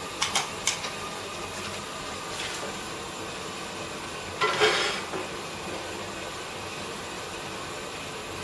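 Glassblowing furnace running with a steady hiss, with a few light clicks in the first second and a short, louder hiss about four and a half seconds in.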